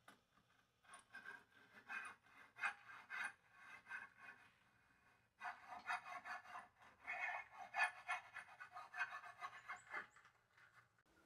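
Quiet hand sawing with a fine-toothed back saw cutting across a softwood board: quick back-and-forth strokes in two runs, with a short pause about five seconds in.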